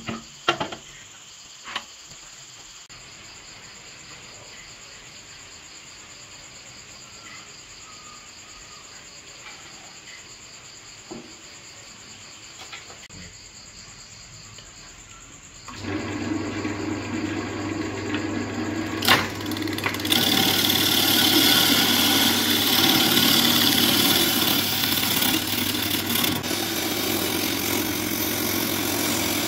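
A few metal knocks as the lathe chuck is handled. About halfway through, the wood lathe's motor starts with a steady hum. A few seconds later a gouge begins cutting the spinning log, a loud, steady, rough scraping of steel on wood as the bark-covered log is roughed down to a cylinder.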